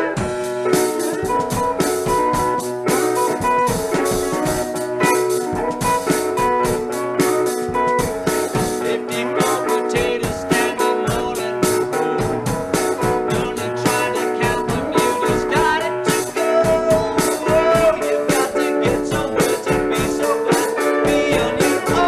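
Rock band playing an instrumental passage without singing: electric guitar and keyboard over a steady beat.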